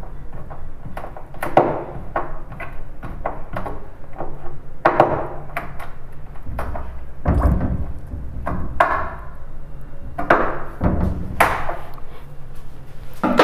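Hand screwdriver driving a screw through a metal L hinge into a plywood door: irregular clicks and creaks of the screw and hinge, with a couple of heavier knocks in the second half.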